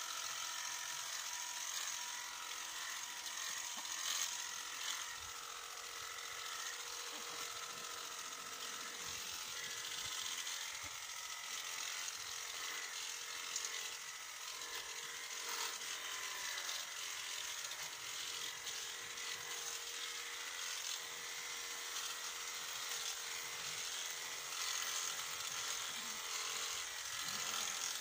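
Electric sheep shears running steadily, a motor hum with a buzzing cutter, clipping a sheep's fleece, with a few small clicks.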